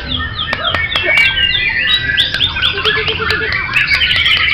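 Several caged songbirds singing at once: a dense, continuous mix of overlapping whistles, chirps and rapid trills, with a short run of repeated low notes about three seconds in.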